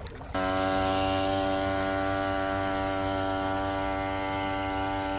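Small boat motor running at a constant speed: a steady, even-pitched hum that starts suddenly about a third of a second in.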